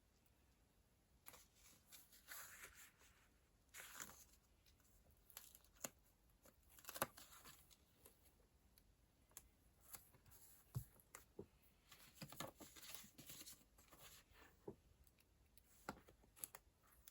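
Faint handling of paper stationery: intermittent soft rustling and tearing, with a few light taps, the sharpest about seven seconds in.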